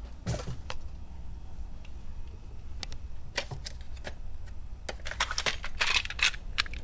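Scattered clicks and clatter of small hard tools and parts being handled and rummaged through, with a quick run of them near the end, over a low steady hum.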